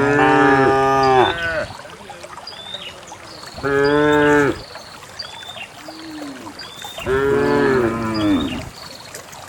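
Cows mooing: three long, loud moos, one at the start, one about four seconds in and one about seven seconds in, with a quieter low moo between the last two. A faint high chirp repeats more than once a second under them.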